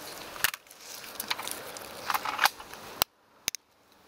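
A drinks can being picked up off dry leaves and its ring-pull fingered: light rustling and several sharp metallic clicks, with a second of near silence after a loud click about three seconds in.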